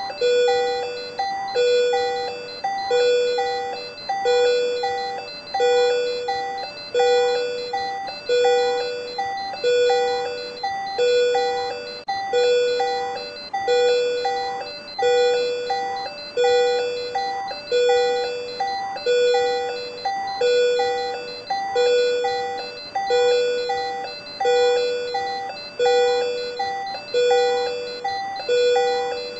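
Patient monitor alarm sounding for supraventricular tachycardia (SVT): an electronic chime-like tone repeating steadily about once a second, each beep starting sharply and fading.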